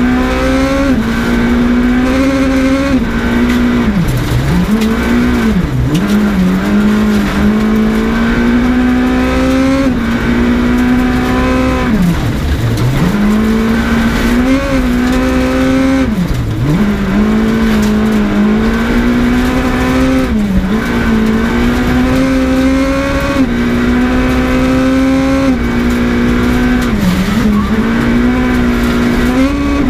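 Skoda Fabia S2000 rally car's two-litre four-cylinder engine, heard from inside the car, running hard at high revs. Its note holds high and creeps upward, then drops sharply and climbs back several times as the revs fall for corners.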